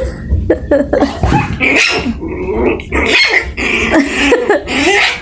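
Puppy yapping and growling over and over in short, high-pitched calls with no pause between them.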